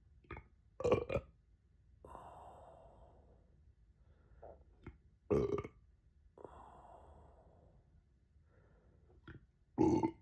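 A person burping, three loud burps about four seconds apart, each followed by a softer breathy exhale.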